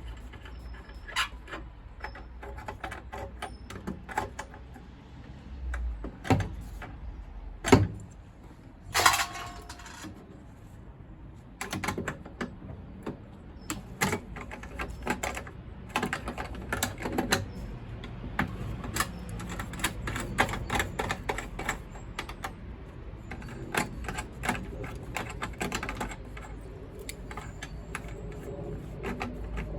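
Metal tools and boiler parts clicking, clinking and knocking irregularly as a gas combi boiler is taken apart by hand, with one louder knock and a short rasping scrape just before halfway.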